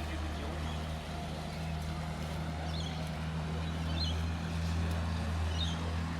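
A steady low mechanical hum, with a few short high chirps over it.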